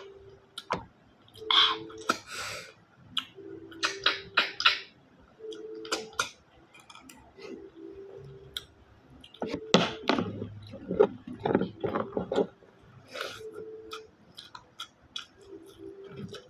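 Wet sucking and slurping as snail meat is sucked out of the shells of coconut-milk-stewed snails, again and again. Shells click and the meat is chewed, with the densest run about ten seconds in, and brief low hums come in between.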